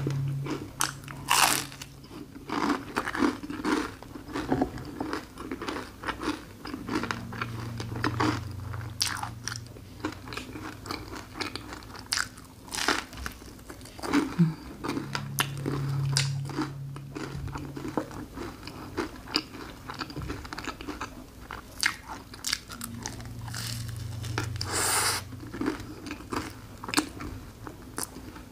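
Close-up eating sounds: repeated crisp bites and crunches of a thin, crunchy waffle shell filled with raspberry cream, with chewing in between. A few drawn-out low hums come and go between bites, about four times.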